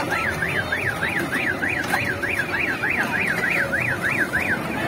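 An electronic siren warbling up and down about three times a second, then stopping shortly before the end. It is most likely the sound effect of a kiddie ride such as the mini train.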